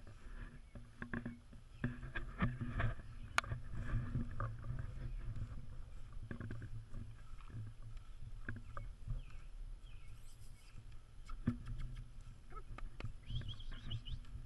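Wind rumbling on a camera microphone held low over a grassy lawn, with grass rustling and scattered sharp clicks and knocks.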